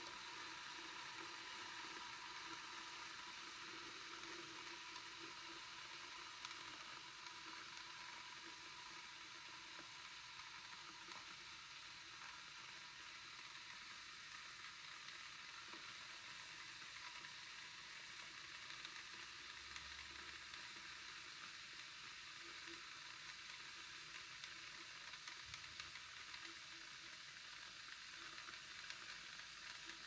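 Glass electric kettle heating water and melting ice, giving a faint, steady sizzling hiss as it works toward the boil.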